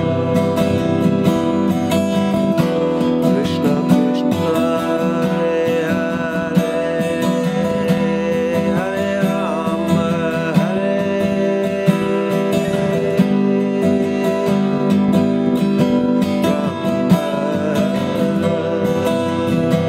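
Steel-string acoustic guitar strummed in steady, ringing chords.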